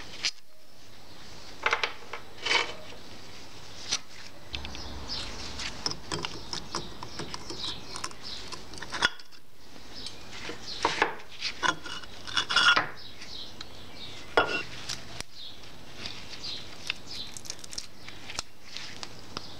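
Irregular metallic clinks, taps and rattles as the screws and cover of a roller mower's chain-drive gearbox are handled, unscrewed and set down on a workbench, with the drive chain and sprockets knocking about once the cover comes off.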